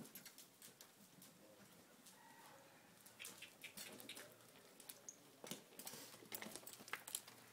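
Faint, irregular footfalls and light clicks of a four-year-old colt walking under saddle on soft arena dirt, getting louder in the second half.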